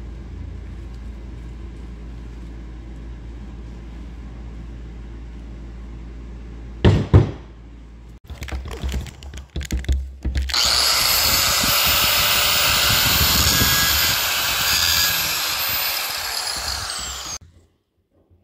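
Angle grinder running for about seven seconds, cutting away at a CV axle's boot and band, with a high whine that falls as the disc spins down and stops. Before it, low hum, a sharp clatter and some handling knocks.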